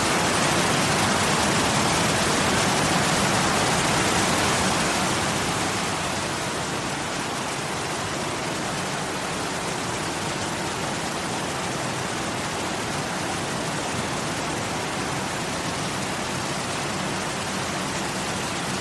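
Waterfall water rushing as a steady, even noise, which becomes somewhat quieter about five seconds in and then holds steady.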